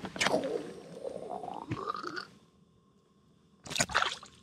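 A walleye dropped back into an ice-fishing hole, a brief splash of water about three and a half seconds in. It follows a slowly rising tone in the first two seconds.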